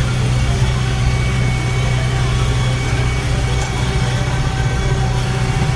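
Tractor engine running steadily, a constant low drone.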